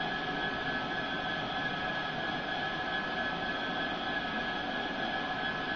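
DCC sound decoder in an OO gauge model diesel locomotive playing a steady diesel engine idle through its small onboard speaker.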